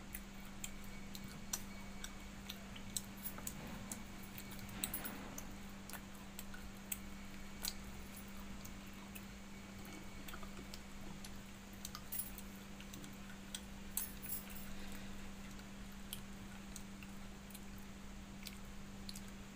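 Quiet eating sounds: chewing and scattered small sharp clicks and taps at irregular intervals as fingers work watery fermented rice in a steel bowl, over a steady low hum.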